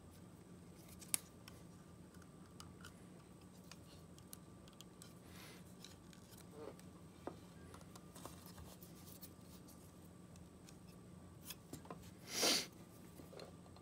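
Faint clicks and rubbing of hands handling a mouthpiece fitted with a 3D-printed string ligature, with a sharp click about a second in and a short louder scrape near the end.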